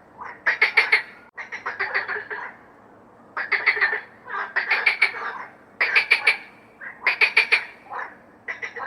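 Frogs calling: short croaks, each a quick run of rattling pulses, repeating about once a second and sometimes overlapping.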